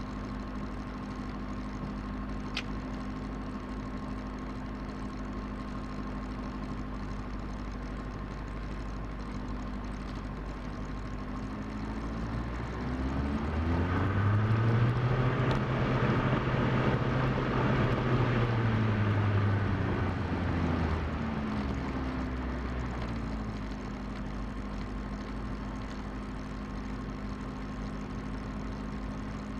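Diesel Cessna 172's engine and propeller idling steadily, then throttled up: pitch and loudness rise about midway, hold high for several seconds, and fall back to idle.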